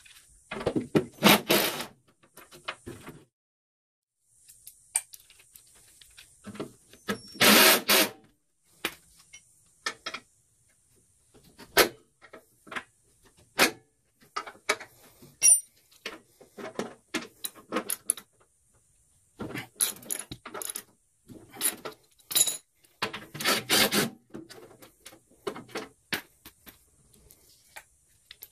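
Cordless impact wrench running in short loud bursts on the 9/16 grille bolts of a WWII Willys MB / Ford GPW jeep, with clinks and taps of hand tools and bolts on metal between the bursts.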